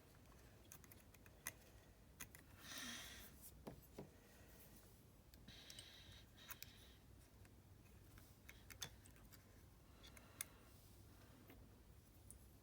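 Quiet, sparse clicks and a few short soft scrapes of small metal repair tools working screws and parts inside an opened smartphone.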